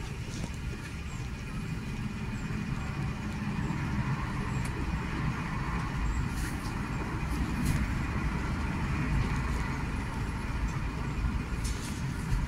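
Diesel being pumped into a Fiat Ducato motorhome's fuel tank: a steady rushing rumble of fuel flowing in, heard at the tank's sender unit, with a few faint ticks.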